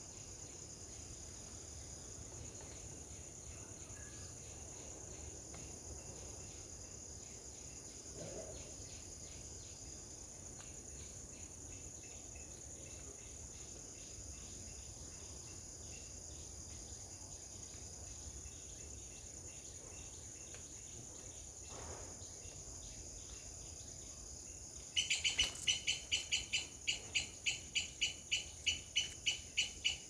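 Steady high drone of crickets or other insects. Near the end comes a loud run of sharp, evenly repeated chirps, about three a second, with fainter chirping like it earlier on.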